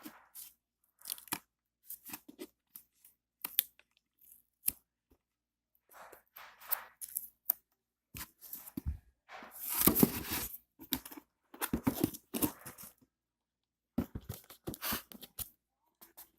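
Packaging being torn open and handled: a run of short, irregular tearing and crinkling sounds, the longest and loudest stretch about ten seconds in.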